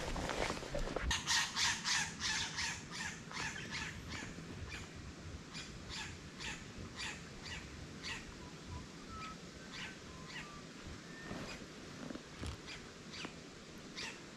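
A bird calling: a run of short, harsh calls, about three a second at first, then slowing and fading, with a few faint whistled chirps in the middle.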